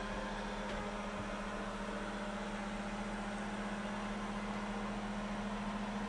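An electric fan running with a steady, unchanging hum.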